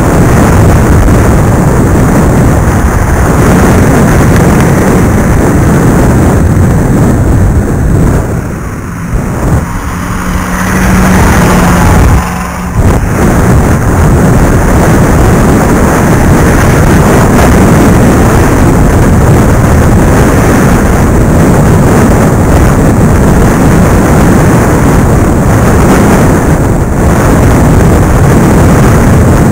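Loud wind buffeting on the microphone of iVUE 720p Crossfire FPV video glasses worn while cycling, the mic hole covered with foam tape, overloading the recording. The rush eases for a couple of seconds about eight seconds in and dips again briefly near twelve seconds.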